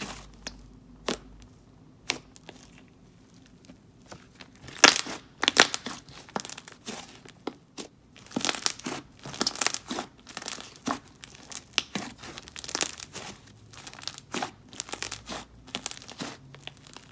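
Hands squishing and pressing a thick, dense clay slime, making irregular crackling bubble pops as air pockets burst. It is mostly quiet for the first few seconds, then the pops come in clusters.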